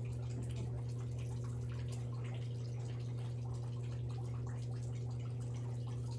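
A steady low hum with a few fainter, higher steady tones above it, unchanging in level; no other sound stands out.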